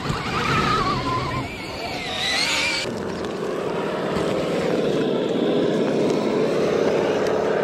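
Electric motor and gear whine of RC scale rock crawlers driving, the pitch wavering with throttle. A higher whine climbs and stops abruptly about three seconds in, leaving a steadier, lower whine.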